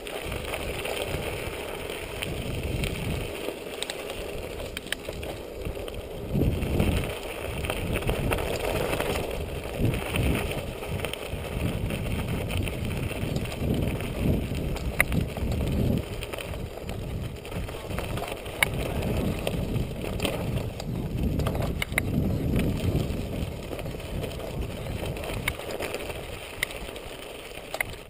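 Univega Terreno 100 hybrid bike rolling fast over a gravel dirt track: tyre noise on loose stones with frequent sharp clicks and rattles over bumps, and wind buffeting the camera microphone in low gusts.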